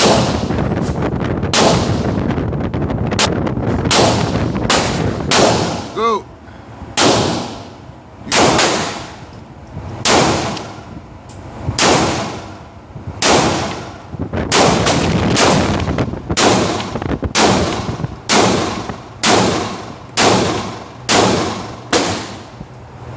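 Gun fired repeatedly, about twenty sharp shots at an uneven pace, mostly a second or so apart with some quicker pairs, each ringing out briefly.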